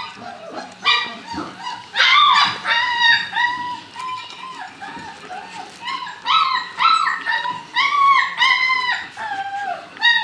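Young puppies whining and yelping in a quick string of short, high-pitched calls, busiest about two seconds in and again from about six seconds in.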